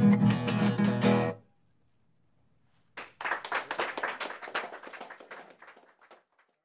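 Nylon-string acoustic guitar strumming chords, which stops abruptly about a second and a half in. After a short silence, hand clapping for about three seconds, fading out.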